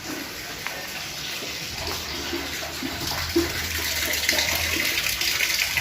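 Water running from a tap, starting about two seconds in and growing steadily louder.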